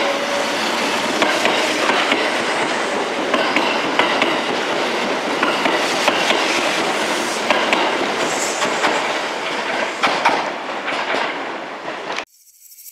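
Kintetsu electric train running through station trackwork, its wheels clattering over rail joints and points with brief wheel squeals. The sound cuts off abruptly near the end.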